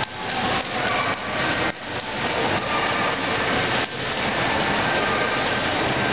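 Steady, dense background noise of a busy shopping mall.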